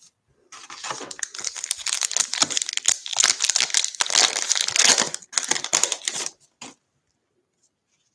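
A 2020 Bowman baseball card pack's wrapper being torn open and crinkled by hand. The crackling starts about half a second in and stops with over a second to go.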